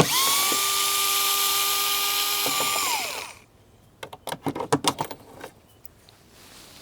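Power drill-driver backing out a door-panel screw. It spins up quickly to a steady whine, runs for about three seconds, then winds down. A few light clicks and taps follow.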